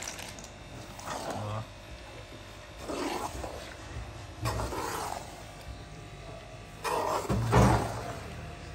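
A metal spoon stirring and scraping a thick, stiff dal and semolina mixture with cashews in a large aluminium karahi. It comes as several separate rasping strokes, the loudest near the end.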